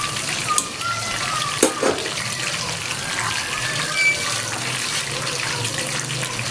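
Water running steadily from a kitchen tap, with a few light knocks, such as utensils touching, about half a second and near two seconds in.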